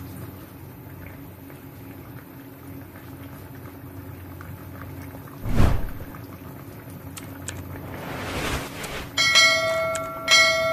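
Sound effects of a subscribe-button animation: a thump about halfway, a whoosh, then two bell dings about a second apart near the end. Under them is a faint steady low hum.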